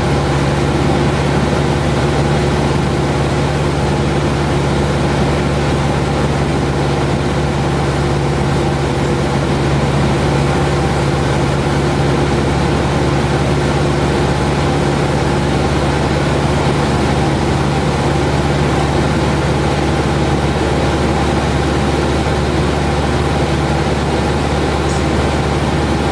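Cessna 172's piston engine and propeller running steadily at constant power, a continuous drone with fixed tones.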